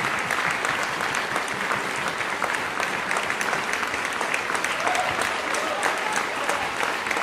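Concert-hall audience applauding: many hands clapping in a dense, steady stream after a performance.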